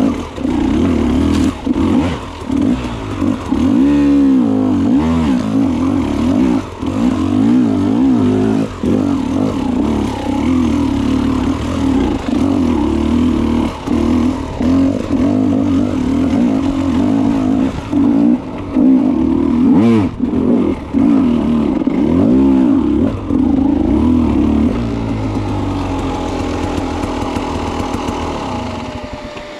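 Enduro dirt bike engine ridden on a trail, revving up and dropping back in short surges as the throttle is worked on and off. About 25 seconds in it eases off and settles toward a steady idle as the bike stops.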